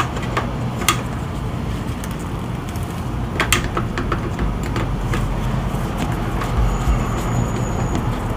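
A few sharp clicks of a screwdriver working the pivot adjustment screw of a sliding screen door's frame, over a steady low background rumble.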